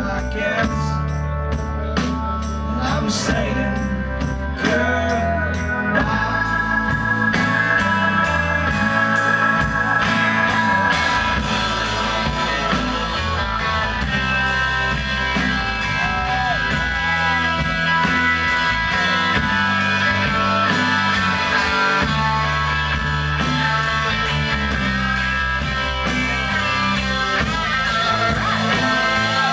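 A rock band playing live, with electric guitars, bass and drum kit. About six seconds in the band fills out, and steady cymbal strokes run on from there.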